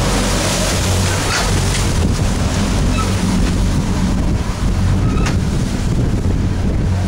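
A boat's engine running steadily under the rush of water along the hull as the boat moves through a choppy sea, with wind buffeting the microphone.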